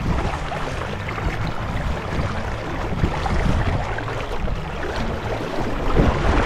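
Shallow river current rushing over stones, mixed with wind buffeting the microphone in an uneven low rumble.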